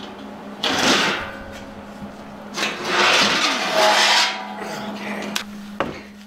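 Welded steel battery rack being handled: two loud scrapes of the steel frame against the workbench as it is lifted and turned, the second longer, followed by a few light knocks.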